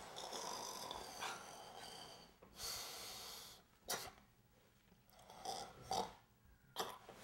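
A man snorting and sniffing through his nose, a series of noisy breath-like snorts, some long and some short and sharp, as he clears his sinuses.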